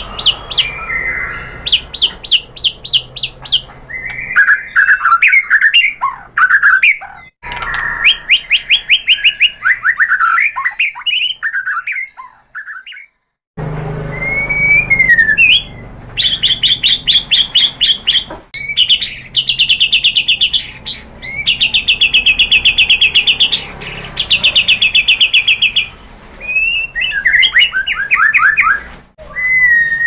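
A male white-rumped shama singing a varied song: fast runs of repeated sharp notes, trills and whistled slurs, with a brief pause a little before halfway.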